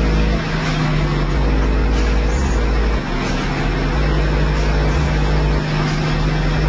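High-powered car audio subwoofer system playing bass-heavy material at competition volume. Very deep bass notes start and stop about every second over a steady lower drone.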